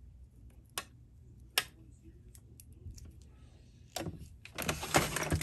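A few light clicks and ticks as straight pins are pulled from fabric trim and set down, two of them sharper, then fabric rustling and small items being handled, louder in the last second or so.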